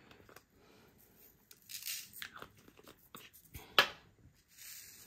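Small resin diamond-painting drills tipped from a little plastic bottle into a plastic tray: light scattered clicking and rattling, with one sharp click a little under four seconds in.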